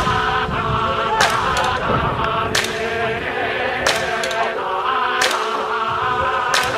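Background music: a song with a chanted or sung vocal over a heavy drum hit about every 1.3 seconds.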